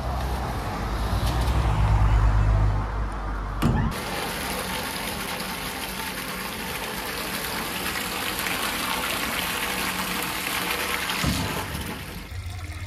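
Liquid natural rubber latex gushing from a wide hose into a tanker lorry's tank, a steady splashing rush. For the first four seconds a low engine rumble dominates, then it gives way abruptly to the gush, which fades near the end.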